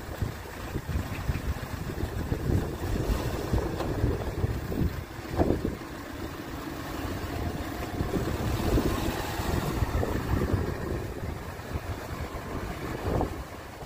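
Wind buffeting the microphone, with road traffic passing.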